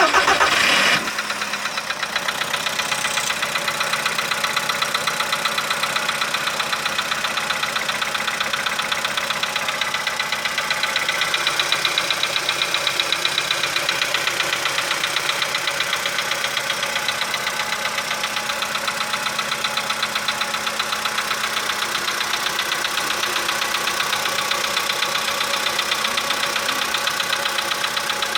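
2015 Volkswagen Polo Sedan petrol engine starting cold at about +5 °C engine temperature. It flares loudly for about a second, then settles to a steady idle with a fast, even knocking from inside the engine, the engine knock being documented.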